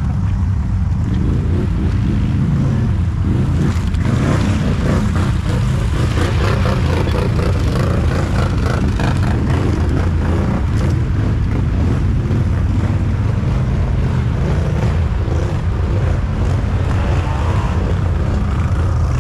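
ATV engine running steadily under load while driving through mud and water, with mud and water churning and splashing from the tyres.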